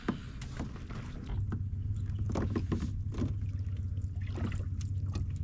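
A small boat's motor starts up a little over a second in and runs as a steady low hum, with scattered small knocks and clicks over it.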